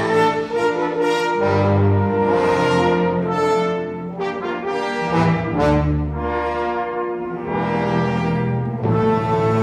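Symphony orchestra playing live, the brass to the fore, in sustained chords that swell and fade several times over strong low notes.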